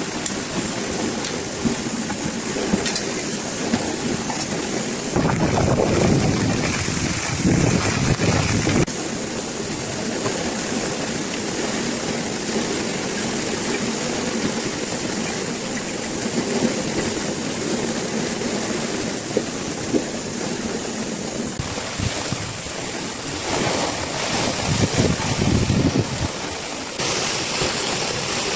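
Storm noise: a steady rush of wind and heavy rain on water, swelling louder with a deeper rumble about five to nine seconds in and again near the end.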